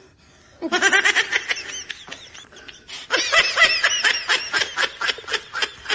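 Someone laughing hard in fast, high-pitched runs of "ha-ha-ha", in two long bouts, the first starting under a second in and the second about three seconds in.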